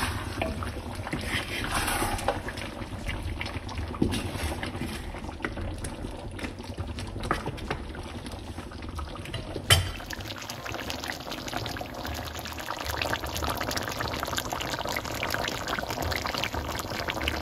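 Thick pork stew bubbling and simmering in a wok, with a wooden spatula stirring through it. Twice there is a sharp knock of the spatula against the pan, the second one near the middle the loudest.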